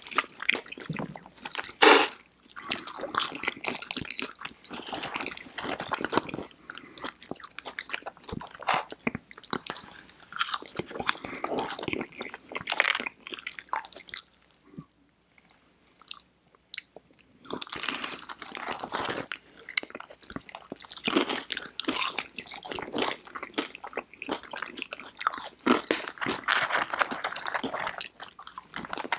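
Close-miked eating sounds of two people biting and chewing fried chicken fingers and crinkle-cut fries: crisp crunches and wet chewing, with a loud crunch about two seconds in and a short lull around the middle.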